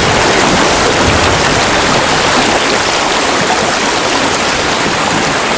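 River rapids rushing over rocks, a loud and steady whitewater roar.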